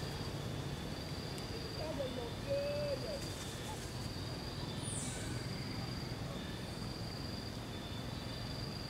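Insects droning steadily in a high pitch, swelling and fading in long pulses, with a short wavering whistle-like call about two seconds in and a brief high chirp midway.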